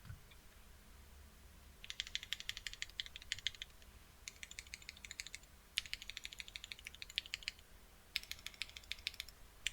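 Typing on a CannonKeys Bakeneko65 custom mechanical keyboard with L&F JWK C Black linear switches in a full FR4 plate: fast runs of key clicks in four bursts of one to two seconds with short pauses, starting about two seconds in.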